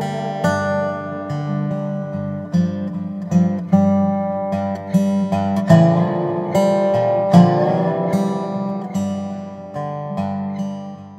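Acoustic guitar music with plucked and strummed notes, fading out near the end.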